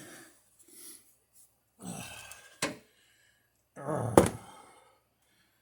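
A man's strained grunts and breaths while he wrestles a spark plug out of a hard-to-reach cylinder, with two sharp knocks, the louder one about four seconds in.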